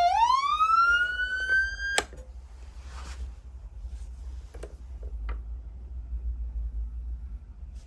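Electronic siren tone from a Whelen 295SLSA6 siren amplifier, sweeping up in pitch for about two seconds, then cut off abruptly with a click. For the rest of the time there is a low hum with a few faint clicks.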